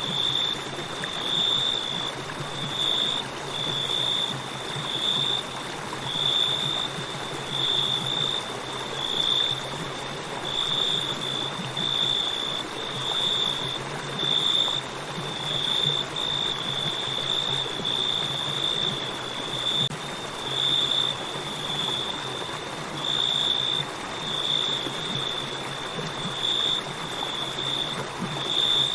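Flowing river with a steady rush of water, overlaid by crickets chirping in a high, pulsing trill that swells about once a second.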